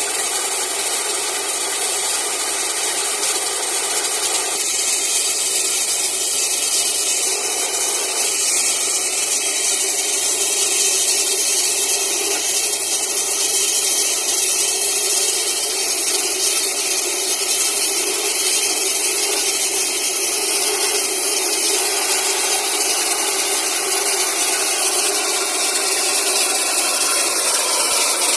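Air compressor flushing out a borewell: a loud, steady rush of compressed air and water blasting up the bore.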